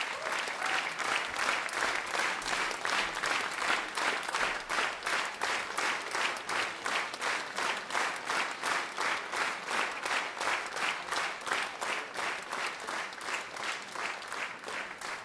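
Concert audience applauding, the clapping falling into unison at a steady beat of about three claps a second, easing off slightly near the end.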